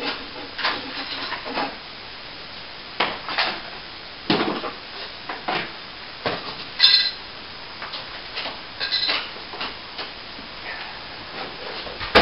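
Intermittent clatter, scrapes and knocks of hard objects being handled, with one ringing metallic clink about seven seconds in.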